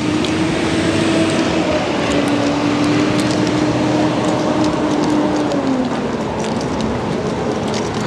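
Car driving: steady road noise with an engine hum that drops in pitch about six seconds in as the car slows.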